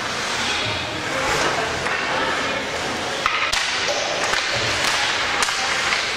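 Indistinct voices and a steady din echoing in a large hall, with a few sharp knocks or clacks about halfway through and near the end.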